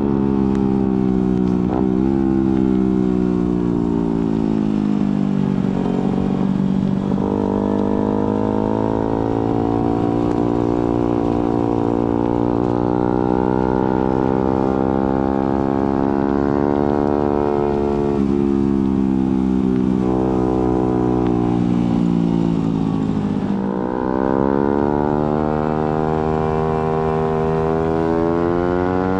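Suzuki GSX-R150's single-cylinder engine running through an aftermarket Prospeed exhaust while riding. The note sinks slowly as the bike slows, steps in pitch about seven seconds in, climbs and falls again, then after a brief dip near the end rises steeply under acceleration.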